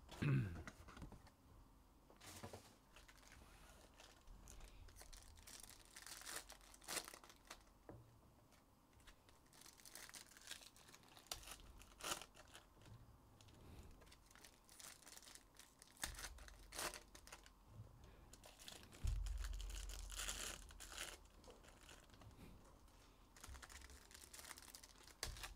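Foil trading-card packs (2023 Bowman Draft Jumbo) being torn open by hand, the foil wrappers crinkling in faint, scattered rustles and crackles.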